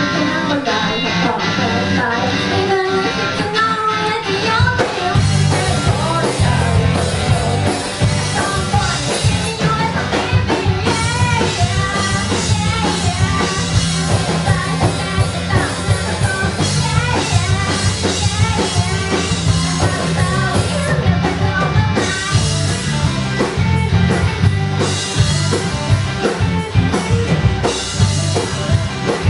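Amateur rock band playing live, with guitars and a drum kit and a singer's voice over the band.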